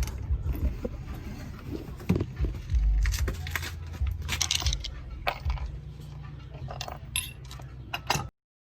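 Metal hand tools and parts clinking and clattering in a quick irregular series of sharp clicks, over a low steady hum, cutting off suddenly near the end.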